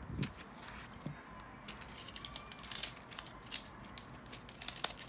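Irregular sharp clicks and crackles, growing denser from about two seconds in, typical of plastic laptop parts being handled, pressed and snapped together.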